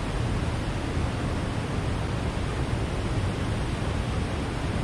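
Steady rushing noise with a fluctuating low rumble and no distinct events.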